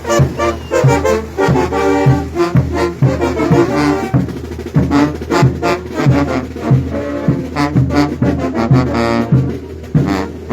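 Bolivian brass band playing: trombones and trumpets carry sustained melody lines over a steady, evenly pulsed drum beat.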